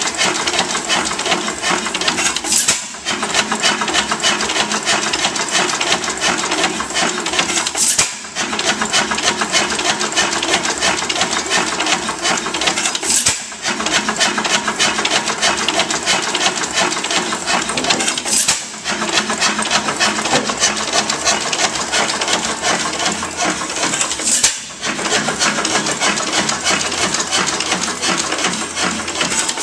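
5 HP Galloway round-rod hit-and-miss gasoline engine running with a steady rapid mechanical clatter, firing with a sharp bang about every five seconds and coasting on its flywheels in between.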